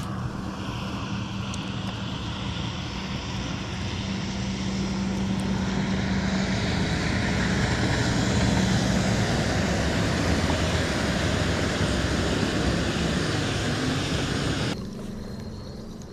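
A steady engine drone with a low hum, swelling gradually to its loudest about halfway and then dropping off abruptly near the end.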